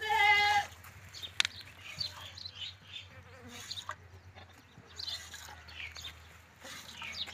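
Cow being milked by hand into a steel bucket: short squirts of milk hissing into the pail about twice a second. A single loud animal bleat sounds at the very start.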